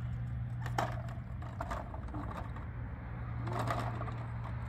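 Small twig fire crackling with a few sharp pops, over a steady low hum.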